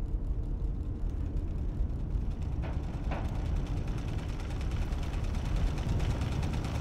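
Car interior while driving: the steady low rumble of the engine and tyres on the road heard from inside the cabin. Near the end a brighter rush of road noise swells up.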